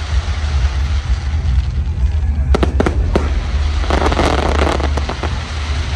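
Fireworks display: a quick run of sharp bangs from bursting aerial shells a little after two seconds in, then a dense burst of crackling about four seconds in, over a steady low rumble.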